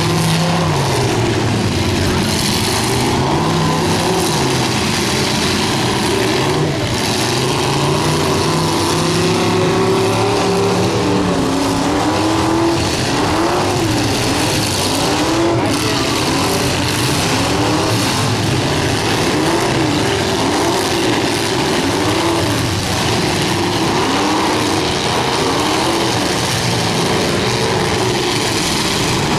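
Several demolition derby cars' engines running together, revved up and down over and over, with the pitch rising and falling about once a second in stretches.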